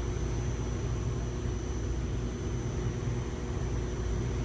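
Steady low machine hum with a faint high whine above it, unchanging throughout.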